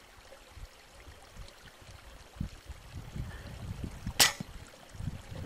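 A single sharp shot from a PCP air rifle about four seconds in, over a low background rumble.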